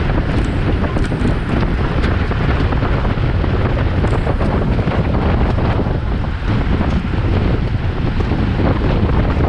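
Loud, steady wind noise rushing over the microphone of a camera on a racing bicycle riding at speed in a bunch.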